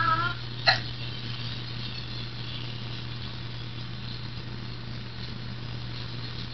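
Steady low hum with light hiss, the background of a home video recording, with one sharp click about a second in. A child's sung note cuts off right at the start.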